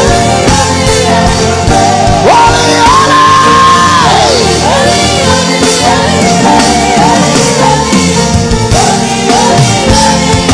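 Loud live worship music with singing and shouting voices. About two seconds in, a voice rises into one long high cry and falls away near four seconds.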